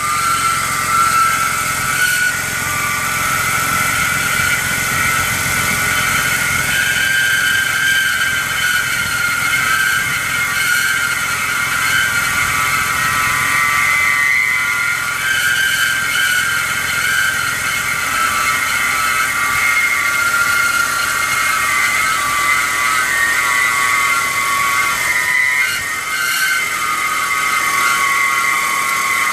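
BMW E46 engine running cold with a steady high-pitched squeal from the drive belt pulleys over the low engine note. The squeal is the sign of worn belt idler and tensioner pulleys, cured by replacing them.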